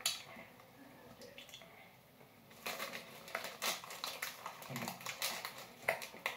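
Plastic candy bag crinkling in quick, irregular rustles as a hand rummages in it for a gummy, starting about two and a half seconds in.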